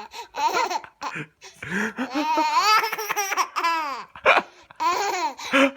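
An eight-month-old baby laughing hard in several bursts, the longest a run of quick laugh pulses in the middle.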